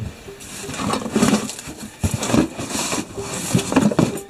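Metal parts and plumbing fittings clattering and rustling in cardboard boxes as they are rummaged through by hand, in three or four irregular bursts.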